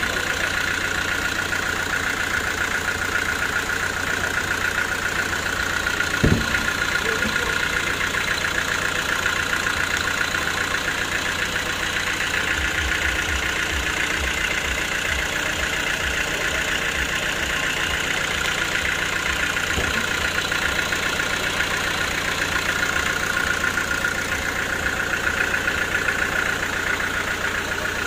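Sawmill saw and its drive running steadily without cutting, a continuous even drone. One sharp knock stands out about six seconds in.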